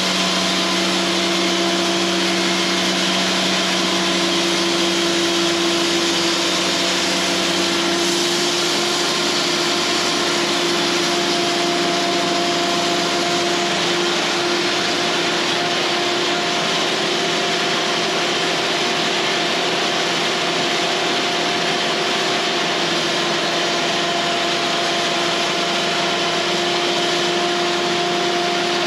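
Cooks AC36 band sawmill running steadily, its blade sawing through a pine cant. The hum changes note about eight seconds in.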